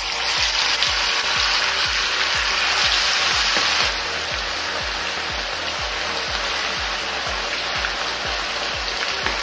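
Marinated chicken pieces sizzling steadily in hot oil in a frying pan, just put in to fry, briefly louder about three seconds in.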